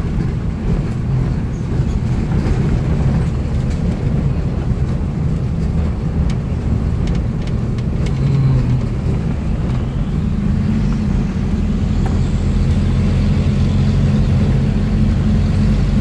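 Car engine running steadily with road noise while the car makes its way down a steep, winding hill road, heard from inside the car. A few light knocks come near the middle, and the engine note grows a little stronger about two-thirds of the way through.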